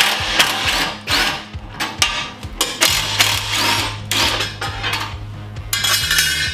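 Cordless impact driver running in a string of short bursts, backing T45 Torx bolts out of a plastic bumper's top plate one after another.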